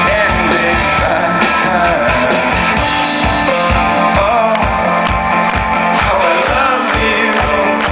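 Live rock band playing loud: electric guitars and bass over a steady kick-drum beat, with a singing voice.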